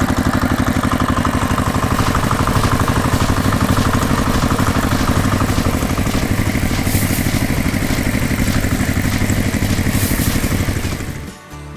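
Heavy engine running steadily with a rapid, even clattering pulse, as for the giant combine harvester; it comes in abruptly and drops away shortly before the end.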